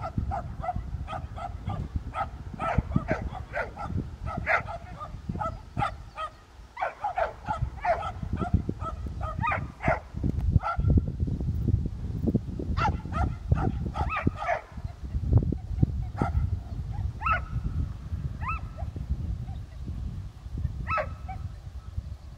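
A search-and-rescue dog barks repeatedly in quick runs of several barks a second, then thins to single barks in the second half. This sustained barking is the kind a rubble-search dog gives as its alert at a buried scent source.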